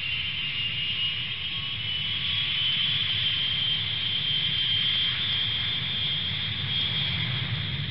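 Boeing 787 jet airliner's turbofan engines in flight: a steady high whine rising a little in pitch over the first few seconds, over a low rumble.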